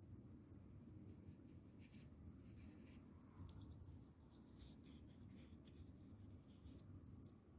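Faint, irregular scratchy strokes of a brush's bristles rubbed across a computer keyboard, over a low steady hum.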